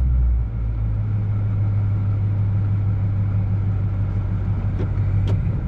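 Engine and drivetrain of a Lexus LX570-based Dakar rally car running, heard inside its stripped cabin as it drives on dirt: a steady low drone that eases about half a second in, with a couple of sharp knocks near the end.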